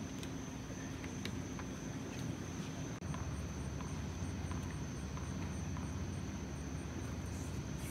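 Insects trilling steadily at a high pitch, with a fainter, higher chirp repeating about three times a second in the middle of the stretch, over a low, steady background rumble. The sound drops out briefly about three seconds in.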